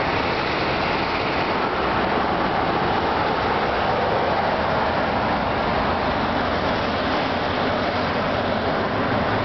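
Steady rushing noise of road traffic, cars driving along a wide multi-lane road.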